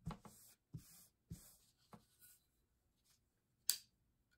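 Short, separate scratchy scrapes and taps of a knife and sharpening gear being handled, about six in all with quiet between them, the sharpest near the end.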